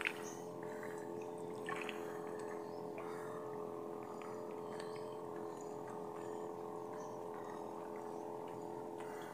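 A steady drone of several held tones at an even level, which cuts off suddenly at the very end.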